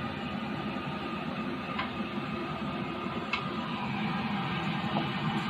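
Food frying in oil in a pan on the stove: a steady sizzle, with two light clicks about two and three and a half seconds in.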